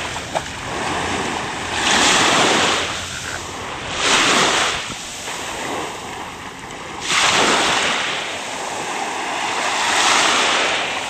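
Small waves breaking and washing up on a beach, the hiss swelling and falling away about four times, every two to three seconds.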